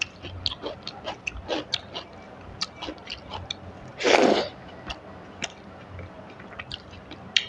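Close-up eating sounds: wet chewing and lip-smacking clicks at an irregular pace, with one loud short noisy burst about four seconds in.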